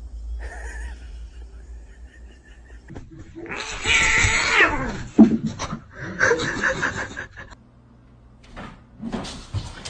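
A cat meowing: a long call that falls in pitch about three and a half seconds in, and a second call about six seconds in.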